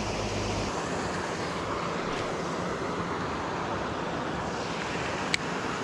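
Steady outdoor background noise, an even hiss, with a low hum that stops under a second in and one sharp click a little after five seconds in.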